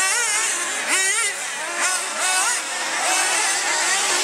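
Small engines of several radio-controlled off-road racing cars, their overlapping high-pitched whines rising and falling as they rev up and back off around the track.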